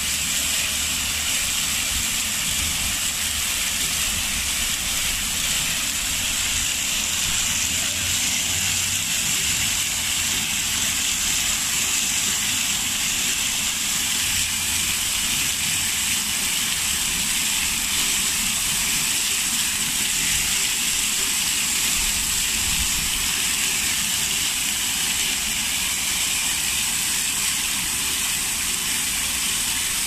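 Fountain with many vertical water jets gushing and splashing back into the basin: a steady hiss of falling water.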